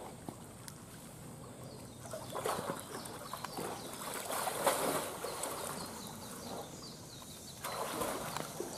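Water splashing as an Amur tiger swimming in a pool paws at and shoves a floating buoy ball. The splashing comes in two bouts: one from about two seconds in, loudest near the middle, and a shorter one near the end.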